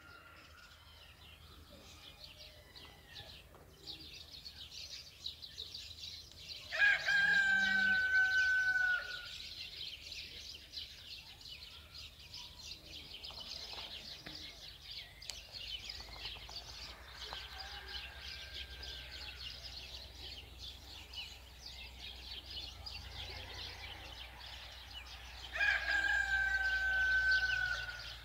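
Rooster crowing twice, each crow a long held note that falls slightly at the end, with a fainter crow in between. Small birds chirp faintly and steadily in the background.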